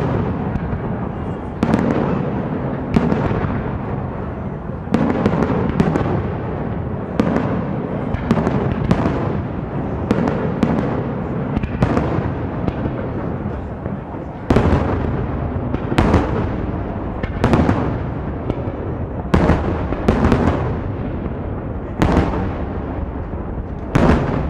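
Fireworks display: aerial shells bursting one after another, a sharp bang every one to two seconds over a continuous din of further bursts and echoes.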